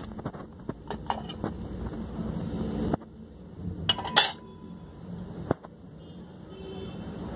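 Metal lid and aluminium pot of an electric rice cooker being handled: light clinks and knocks, with a louder metallic clatter about four seconds in, over a low steady background noise.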